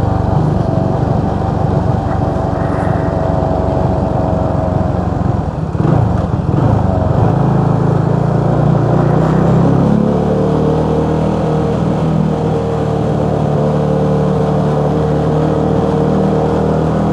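Motorcycle engine running while riding. About six seconds in the engine note dips and shifts in pitch, then settles into a steady, even note.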